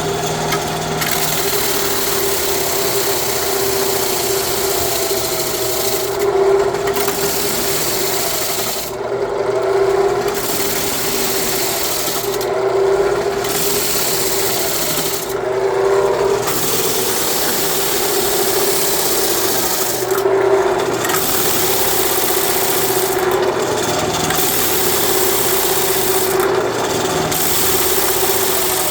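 Homemade electric sanding rig running with a steady motor hum while abrasive grinds against wood. The rasping dips briefly every few seconds.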